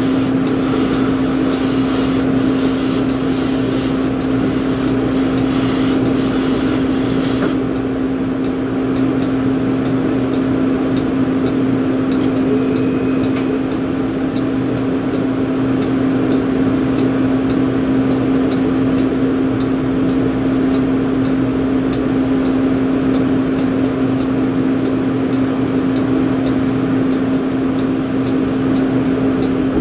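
Steady drone of drilling-rig machinery with a strong low hum, under the loud hiss of a pressure washer spraying, which cuts off about seven seconds in.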